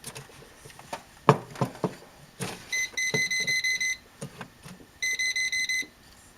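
Electronic voltage tester beeping in two bursts of rapid beeps, about three seconds in and again near the end, after a few handling clicks. The beeping is taken as the sign that the socket is wired backwards (reversed polarity).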